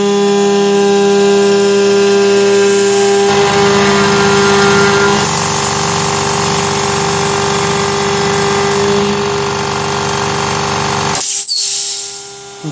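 Air compressor supplying a CNC mill's air assist running steadily over the mill's steady tones, then switching off abruptly near the end, leaving a steady hum.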